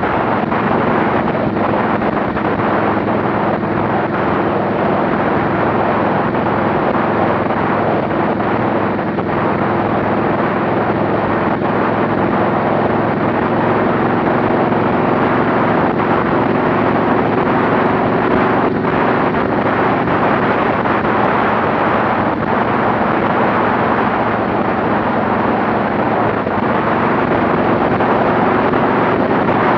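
Motorcycle engine running steadily at highway cruising speed, with heavy wind rushing over the microphone.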